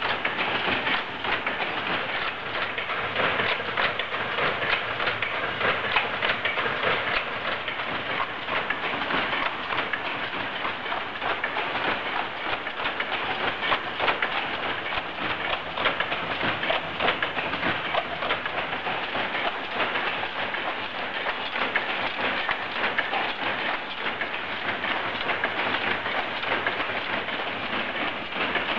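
Power loom weaving tweed, running at speed: a dense, steady mechanical clatter of rapid clicks and knocks.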